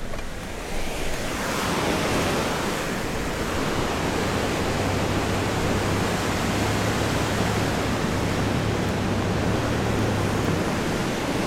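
Steady rush of a fast whitewater river, swelling about a second in, with a low steady engine hum underneath from the 4x4 on the gravel track.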